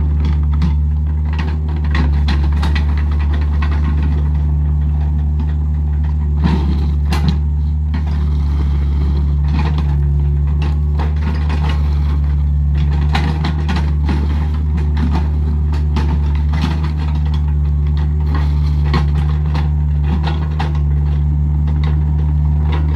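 Diesel engine running steadily at a constant speed, with scattered clanks and knocks over it.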